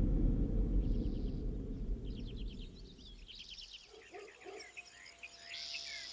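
A deep rumble dies away over the first three seconds, and birds start chirping in quick runs of short notes that grow busier toward the end.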